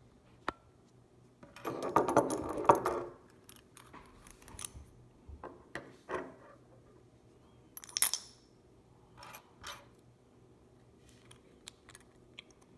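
Handling noise of a glass-bodied pepper mill with a wooden top and metal grinder: a dense rattle of clicks lasting about a second and a half, starting about a second and a half in, then scattered clicks and taps as it is turned in the hands.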